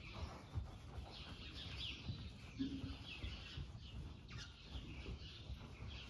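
Small birds chirping again and again, over the regular dull thuds of a horse's hooves on soft arena footing as it circles on a lunge line.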